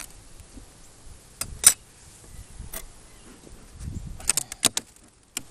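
Plywood inner cover of a beehive being pried loose from the hive box: a string of sharp clicks and cracks, the loudest about a second and a half in, then a quick cluster of them near the end.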